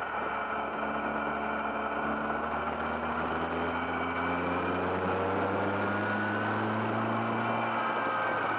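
GBS Zero open-top kit car's engine running under way, heard from the open cockpit, its pitch rising slowly as the car gathers speed.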